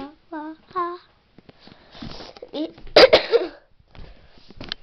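A child's voice makes a few short pitched sounds, then a loud cough-like burst comes about three seconds in. Scattered clicks of handling run through it.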